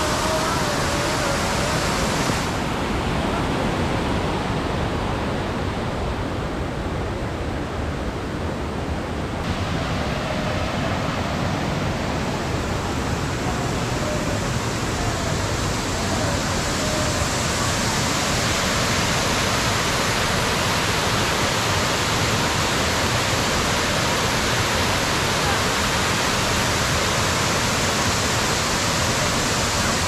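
Steady rush of a waterfall cascading over rocks in full rainy-season flow. Its hiss dulls for several seconds near the start, then returns full, with faint voices now and then.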